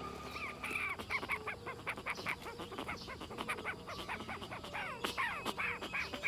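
Birds calling in a rapid, overlapping flurry of short squawks, several a second, starting about half a second in.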